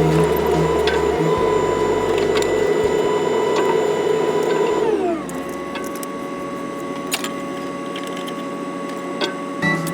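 Wheeled excavator's engine and hydraulic pump running with a steady whine at working revs; about halfway through the revs drop and the whine glides down in pitch and settles lower and quieter at idle.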